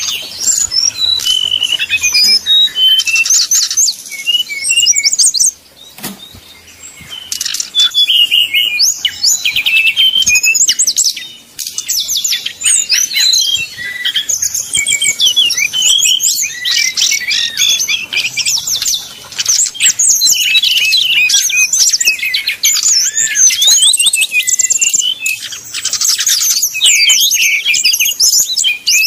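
Brown-chested jungle flycatcher (SRDC) singing its full, fast fighting song: dense, varied runs of high chirps and trills. There are short breaks about 6 and 11 seconds in.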